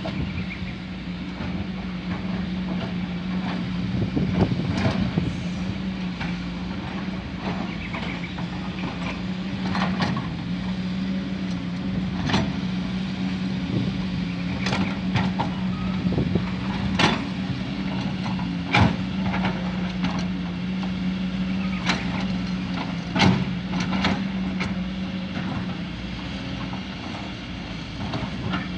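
Diesel engine of heavy construction machinery running steadily, with sharp knocks and clanks at irregular intervals, roughly every one to three seconds.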